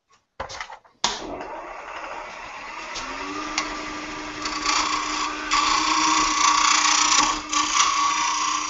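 A wood lathe switches on about a second in and runs steadily with a small wooden duck call spinning in its chuck. From about halfway, a thin strip is held against the turning call and adds a loud hiss.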